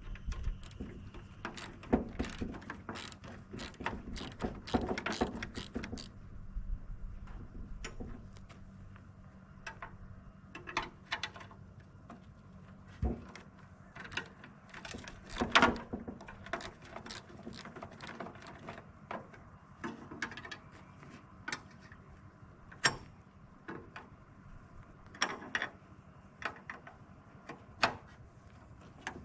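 Irregular metallic clicks, knocks and clanks of hand tools and parts on a backhoe's steel dash panel as its fittings are taken out, with one louder knock about halfway through. A steady low hum runs underneath.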